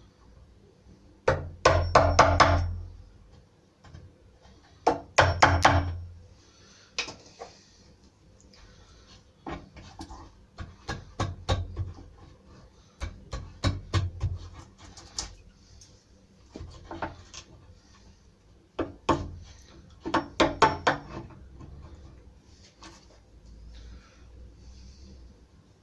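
Hand-tool woodworking on a wooden door: irregular runs of sharp knocks and taps on wood, with two louder bursts of rapid strikes about two and five seconds in.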